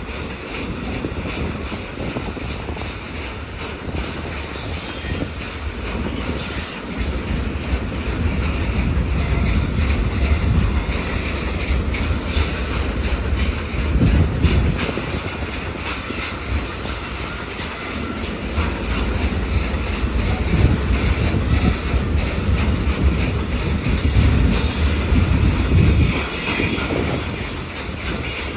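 Freight train of oil tank wagons rolling past with a steady rumble, its wheels clacking over the rail joints. A high-pitched wheel squeal rises near the end.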